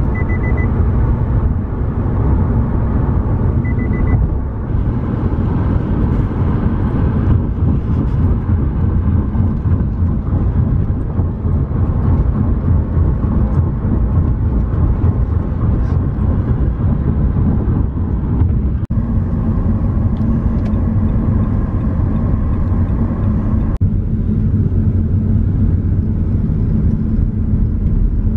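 Road noise inside a moving car's cabin: a steady low rumble of tyres and engine.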